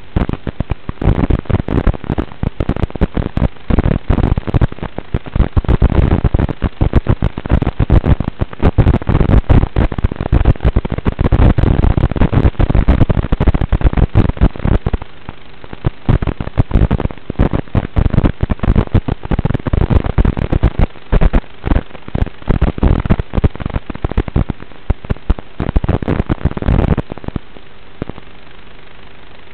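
Harsh crackling static from an analog FPV drone's video link audio, coming and going in dense clusters, with a faint steady hum beneath.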